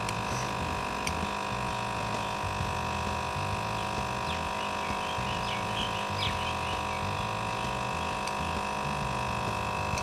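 Induction heater running with a steady electrical whine and low buzzing hum while heating gold particles in a graphite crucible, with a few faint crackles near the middle.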